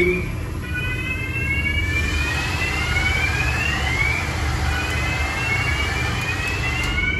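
Steady low machinery rumble with a high whine that keeps gliding upward, dropping back and rising again every second or two.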